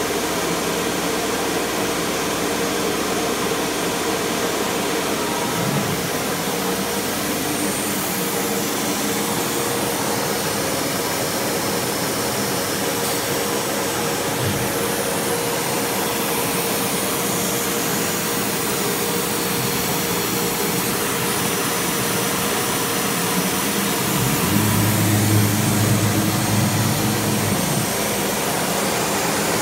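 MultiCam CNC router running with its dust-extraction vacuum on: a steady rushing hum with a constant mid-pitched tone. Near the end the tone gives way to a deeper, slightly louder hum for about three seconds.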